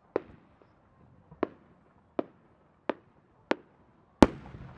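Aerial firework shells going off: six sharp bangs at uneven intervals, the last and loudest about four seconds in, followed by a lingering rumble.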